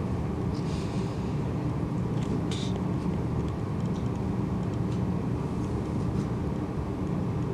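Steady low-pitched background hum with a few faint light clicks.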